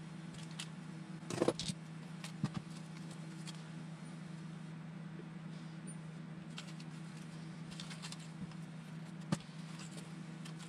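Small RC car parts and hardware being handled on a workbench: a few light clicks and clinks about a second and a half in and again a second later, and one sharp click near the end, over a steady low hum.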